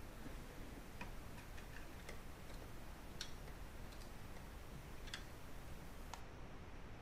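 Faint, irregular metallic clicks and ticks of a small screwdriver working the screws that hold a transistor heat sink in a stereo amplifier, about eight clicks spread unevenly over a few seconds.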